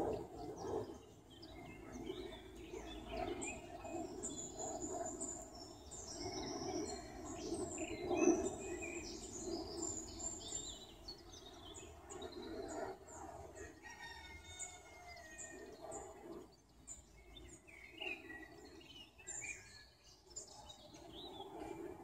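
Mixed birdsong: several wild birds chirping and trilling in short, overlapping phrases, over a lower, uneven pulsing sound.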